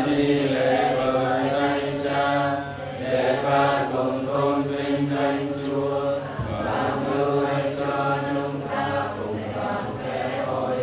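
Group of voices singing a slow liturgical chant together, in long sustained phrases with brief pauses between them.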